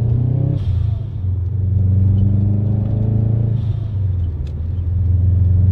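Turbocharged flat-four of a Subaru Impreza WRX STi Version 3, heard from inside the cabin as it pulls under boost. Twice the throttle closes for a gear change and the engine note drops, and the newly fitted atmospheric blow-off valve vents each time with a short hiss.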